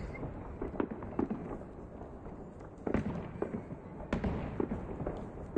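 Aerial firework shells bursting in a display: a string of bangs and crackles, with the loudest bangs about three seconds in and again just after four seconds.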